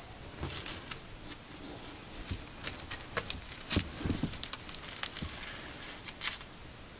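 Irregular light clicks, taps and faint rustles of hands handling dried flowers and small items over a silicone coaster mould. The taps come thickest around the middle, and the sharpest single click comes near the end.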